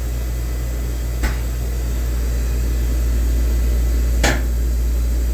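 Star ATG-6AC CNC tool and cutter grinder humming steadily as its B-axis is jogged. Two sharp clicks come about a second in and about four seconds in.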